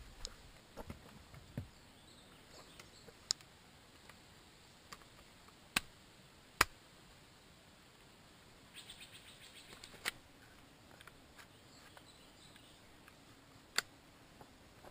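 Scattered sharp clicks and knocks from gear and a rifle being handled in the back of an SUV, the loudest about halfway through. About nine seconds in there is a short, rapid series of high chirps.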